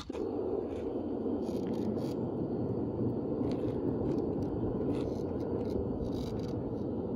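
Longboard's Orangatang Caguama 85 mm urethane wheels rolling over asphalt, a steady rolling rumble as the board cruises along the street.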